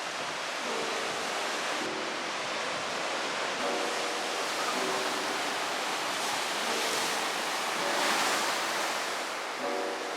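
Sea waves washing on the shore: a steady rush of surf that swells about eight seconds in. Light background music with short plucked-sounding notes plays over it.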